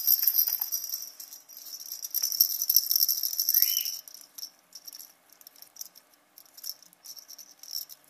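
A plastic bird rattle toy, a holed ball on a handle, rattling and jingling steadily as it is shaken for about four seconds, then breaking into scattered clicks and short rattles as an African grey parrot bites at it.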